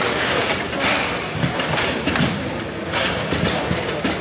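Bonzini table football in play: rods rattling and sliding through the table, with the ball and figures giving many quick knocks and clacks.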